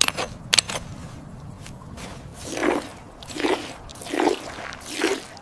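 Sharp clicks of stone striking stone, as in flint knapping, in two quick pairs within the first second. They are followed by a slow, even series of crunching sounds about every three-quarters of a second.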